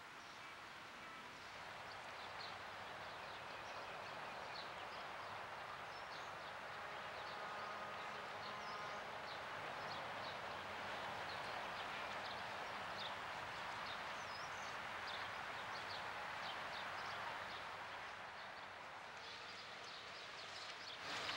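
Outdoor ambience of small birds chirping: many short, high chirps over a steady hiss.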